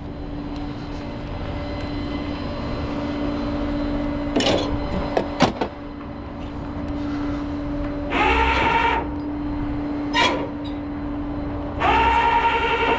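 Tow truck running with a steady hum, and twice a whine that rises then holds level, once for under a second and then for longer near the end, with a few sharp clicks between.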